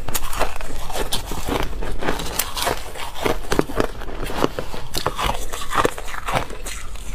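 Crushed ice being chewed close to a lapel microphone: a fast, irregular run of crisp crunches.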